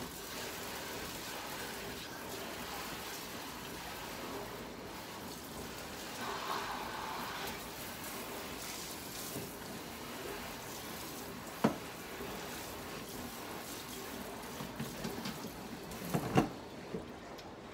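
Water running steadily from a sink tap while the sink is rinsed out, with one sharp knock about two-thirds of the way through and a few clatters near the end as the water stops.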